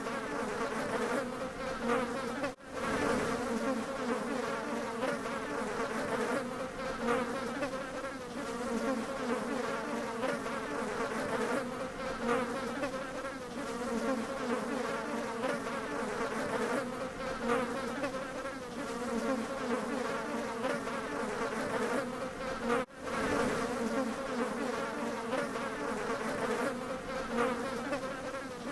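Bees buzzing in a steady drone of many overlapping, wavering tones. The sound drops out for a split second twice, once early on and once late.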